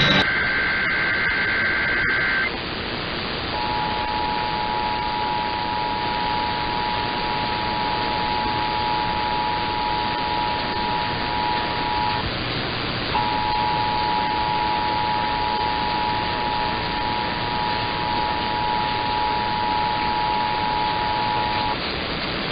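EAS test received over radio with steady static hiss underneath. The first two seconds or so are the tail of a warbling two-tone SAME data header burst. Then the Emergency Alert System attention signal, a steady two-tone beep of 853 and 960 Hz, sounds for about eight seconds, breaks off for about a second, and sounds again for about eight seconds.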